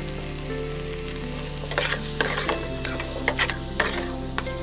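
A metal spatula stirring and scraping crumbled paneer, peas, onion and tomato around a hot frying pan, the food sizzling, with sharp scrapes of the spatula on the pan several times in the second half.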